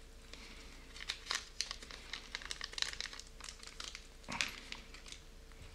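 Small clear plastic parts bag crinkling as it is handled and opened, in a run of short irregular crackles, with a louder rustle about four seconds in.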